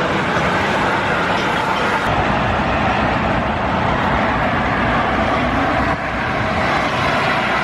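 Boeing 777-300ER's GE90 turbofan engines running at taxi power: a steady, even engine noise with a faint whine.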